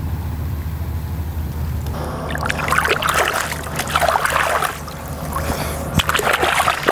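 Water splashing and sloshing as a mirror carp is released into the shallow margin and swims off, in three bursts starting about two seconds in, with a sharp knock near the end.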